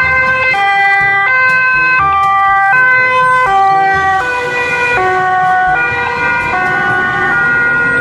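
German two-tone emergency siren on a fire-service Volkswagen emergency van, alternating between a high and a low note about every three-quarters of a second. Its pitch drops slightly about four seconds in as the van passes.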